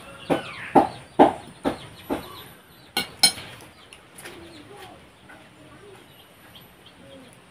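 A hen clucking in a steady run, about two clucks a second, stopping a little over two seconds in; a metal spoon clinks twice on a ceramic plate about three seconds in, then only faint, softer animal calls follow.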